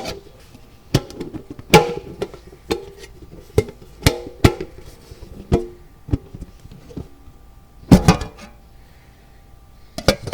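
Metal cookie tin being opened and closed: a run of sharp tinny clanks and scrapes, with the lid and box ringing briefly after the harder knocks. Two of the loudest clanks come about two seconds in and about eight seconds in, and there is a short pause near the end.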